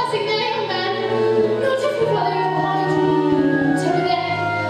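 Stage-musical music played live: sustained accompaniment chords over a steady low note, with singing.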